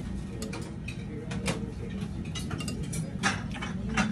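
Metal spoon clinking and scraping against a ceramic curry plate: several light, irregular clinks over a steady low background hum.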